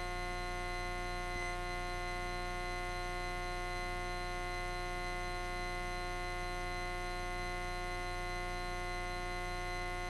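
Steady cockpit drone of a piston aircraft climbing at climb power (31 inches manifold pressure), heard through the intercom feed as an unchanging hum of many fixed tones.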